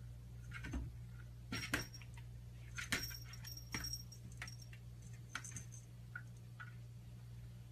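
Small bell on a cat's collar jingling in several short bursts, with light taps, as the cat stands on its hind legs pawing at a door.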